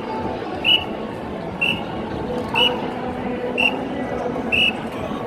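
A whistle blown in short, sharp, high-pitched blasts at an even beat of about one a second, over the steady noise of a large crowd.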